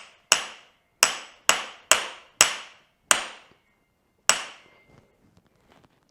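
Hammer blows on the back of a hand impact screwdriver, seven sharp metallic strikes that ring briefly, to break loose a stuck plug screw on a dirt bike's rear brake caliper. The strikes come about every half second at first, then more slowly, the last about four seconds in, followed by a few faint clicks.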